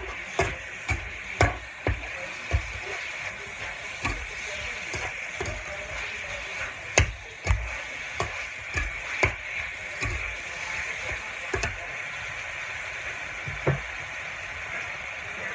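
Pork sizzling as it stir-fries in a metal wok, a metal spatula scraping and knocking irregularly against the pan. The knocks stop near the end, leaving the sizzle.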